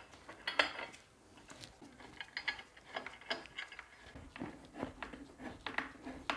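Small metal fasteners (bolts, spacers and countersunk washers) clicking and tapping against a motorcycle rear luggage rack as they are handled and started by hand. A string of light, irregular metallic clicks.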